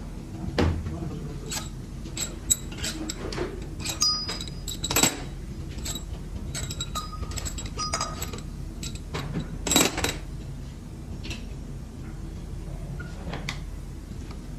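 Metal tools and engine parts clinking and knocking as they are handled during an engine teardown. There are scattered short clinks, several with a brief metallic ring, and a louder knock about ten seconds in.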